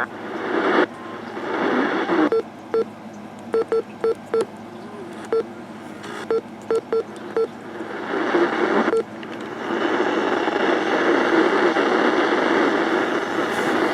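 Weather radio receiver giving about a dozen short, same-pitched beeps at irregular spacing, typical of button presses while changing channels, with bursts of static hiss between them. From about ten seconds in there is steady static hiss.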